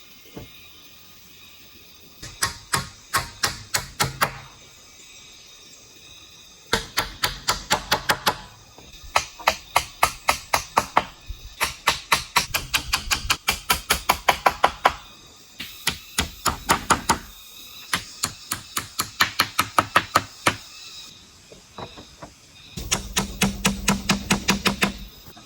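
Tool strikes on bamboo in quick runs of knocks, about five a second, each run lasting one to three seconds with short pauses between.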